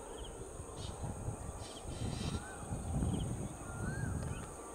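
Birds calling, with several short caws and a couple of whistled rising-falling notes, over a low rumble from a distant approaching electric multiple unit train.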